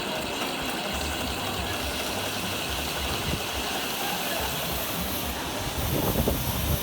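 Lathe running with a steady mechanical noise and hiss, growing louder with irregular low rumbling near the end.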